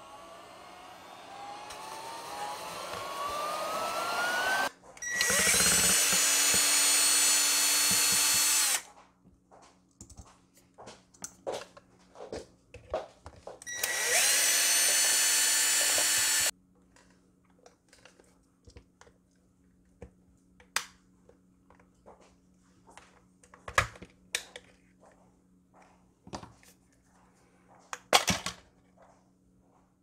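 Handheld mini vacuum running against a hair dryer's intake, with a whine that rises in pitch and grows louder over the first few seconds. A cordless drill/driver then runs in two bursts of a few seconds each, backing out the dryer's housing screws. Scattered clicks and knocks of the plastic housing being handled and pried apart follow.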